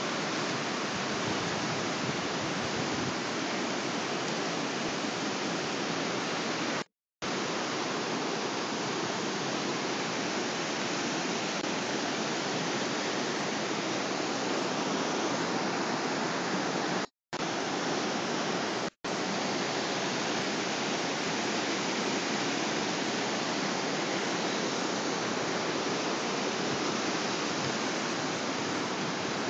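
Steady rush of a swollen, muddy river in flood, running fast and turbulent. The sound cuts out to silence briefly three times: about 7 seconds in, and twice around 17 to 19 seconds in.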